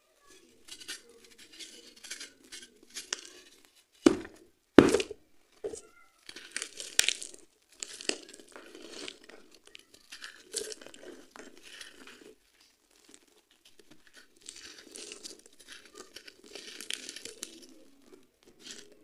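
Dry sand-cement being crumbled by hand over a heap of gritty crumbs on a floor: irregular crunching and grinding of grit. Two loud thumps about four and five seconds in.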